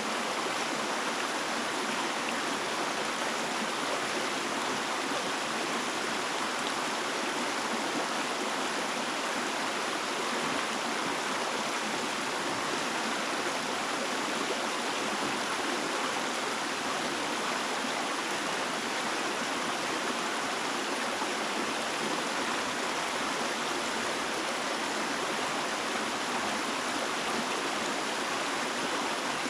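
Running water, a steady, unbroken rush like a flowing stream.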